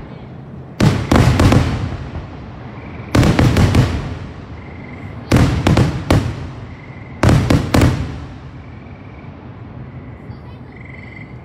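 Aerial firework shells bursting in a display's grand finale: four volleys of three or four quick, loud bangs each, about two seconds apart, every volley trailing off in a rumbling echo.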